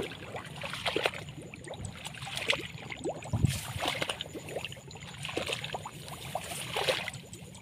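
Irregular rustling and small crackles with light watery sloshing, like footsteps pushing through wet grass in a flooded paddy field.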